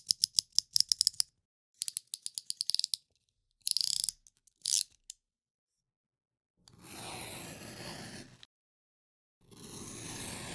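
Box cutter blade being ratcheted along its slider in rapid clicks, in two runs over the first three seconds, then two short bursts. After a pause come two long scraping strokes, each about two seconds, of the blade drawn through material.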